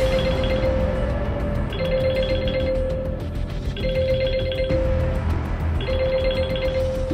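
Smartphone ringtone for an incoming call, ringing four times, each ring about a second and a half long and about two seconds apart, over background music.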